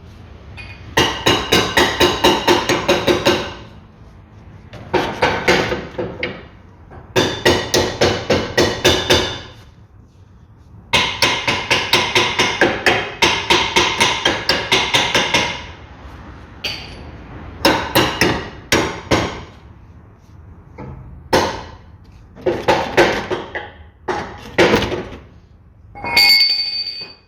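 Hammer beating on steel to drive a new front suspension control arm into its mounts, in quick runs of about five blows a second with short pauses, then shorter groups of strikes near the end; the struck metal rings.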